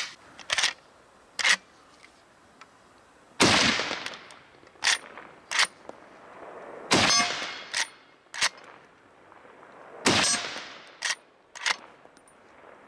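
A Henry Long Ranger lever-action rifle in .308 Winchester fired three times, about three seconds apart, each shot echoing. Between the shots come pairs of short metallic clacks as the lever is worked to chamber the next round. Two light clicks of the action come before the first shot.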